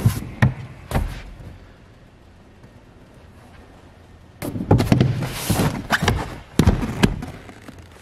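Dull thumps and knocks from someone moving about on board the boat: a few in the first second, then a busy run of them from about halfway on, with a quiet gap between.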